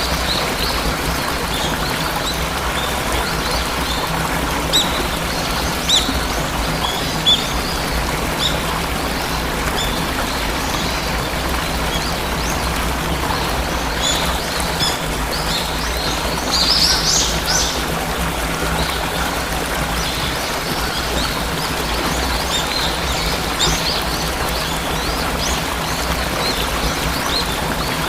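Waterfall rushing steadily with many small birds chirping over it; the chirps are short and scattered, with a louder flurry a little past halfway.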